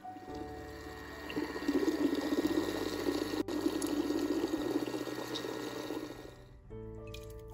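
Thick split pea soup pouring and sloshing. It builds in the first two seconds, is loudest in the middle and stops about six and a half seconds in.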